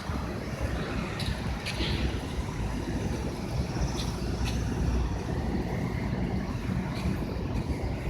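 Steady low rumbling noise, wind buffeting the microphone, with a few faint light ticks scattered through it.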